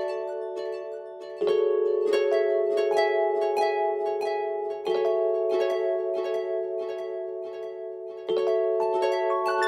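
Instrumental background music: a quick, steady run of plucked notes over held chords that change about every three and a half seconds.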